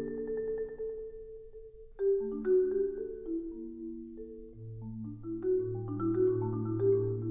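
Solo acoustic guitar picking an instrumental: single ringing notes and arpeggios with a new phrase beginning about two seconds in, and a low bass note joining past the middle.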